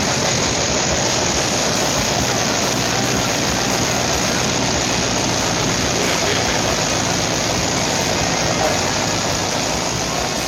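Ford 351 Windsor V8 with an Edelbrock Performer RPM top end running steadily on its first start-up, a loud, even, rushing engine and exhaust noise.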